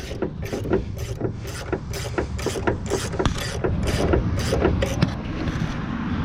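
Ratcheting wrench clicking steadily, about two to three clicks a second, as it is worked back and forth by hand to spin off a strut mount nut on a 2014-2018 Silverado/Sierra 1500.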